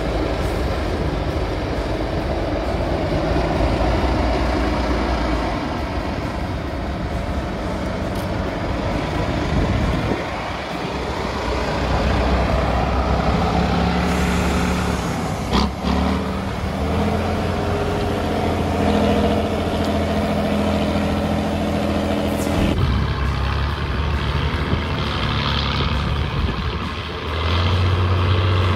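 Heavy truck-trial competition trucks' engines working hard on a steep, rough course, the engine note rising and falling in several takes. There is one sharp knock about halfway through.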